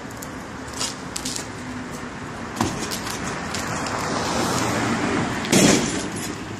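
A portable basketball hoop being forced over, with a few knocks and clanks, then a loud crash about five and a half seconds in as it comes down. Steady street traffic noise runs underneath.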